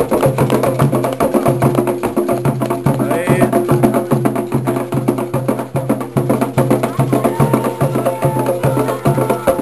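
Afro-Brazilian religious music: drums and fast, dense clicking percussion on a steady beat of about two pulses a second, with voices singing over it.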